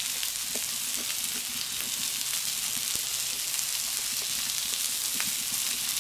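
Pieces of pork tenderloin sizzling on a hot steel fire plate: a steady frying hiss with scattered small crackles.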